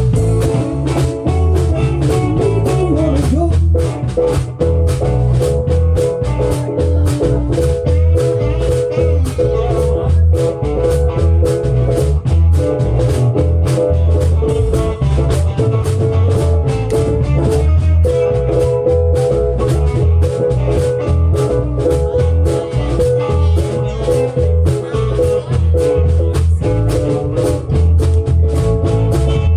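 Live band performing a song, with a steady beat and sustained melodic instrument lines throughout.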